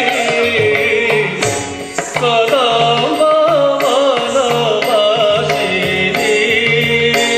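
Indian classical music accompanying Odissi dance: a winding, ornamented melody over a drone with regular drum strokes, briefly dipping about two seconds in.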